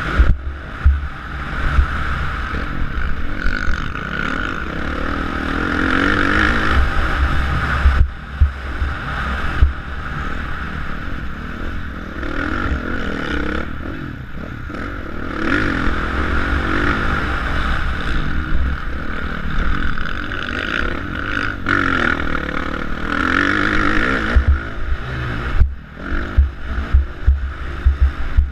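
Motocross bike's engine, heard from the rider's helmet camera, revving up and falling off again and again through straights and corners. Wind buffets the microphone and sharp thumps and rattles come from the bike going over bumps, most of all near the start and toward the end.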